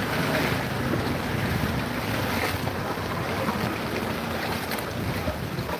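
Steady rush of cyclone wind buffeting the microphone, mixed with the wash of knee-deep floodwater.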